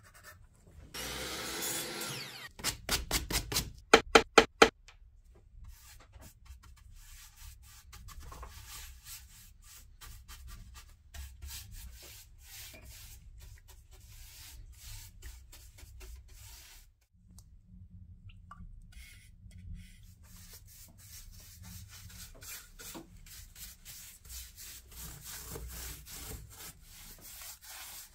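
A paintbrush rubbing and scratching over bare wooden slats as finish is brushed on. Near the start there is a short rasping noise and then a quick run of sharp knocks, the loudest of which come a little after the rasping.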